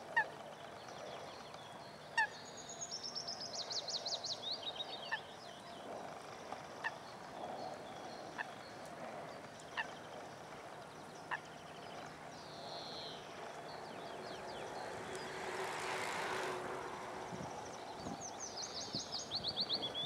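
A small songbird sings a fast trill that steps downward in pitch, lasting about three seconds. It sings once a couple of seconds in and again near the end. Between the songs come short, sharp falling call notes every second or two, and a rush of noise swells and fades a little after the middle.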